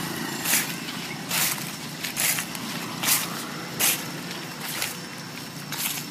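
Footsteps crunching through dry fallen leaves at a slow walking pace, a little more than one step a second, over a low steady background rumble.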